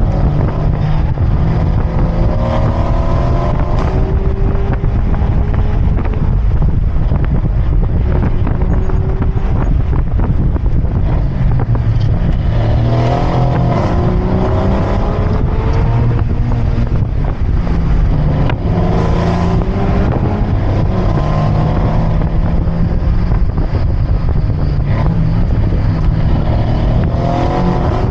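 Mazda MX-5's four-cylinder engine heard on board while driving, its revs climbing and dropping several times over a steady low rumble of road noise.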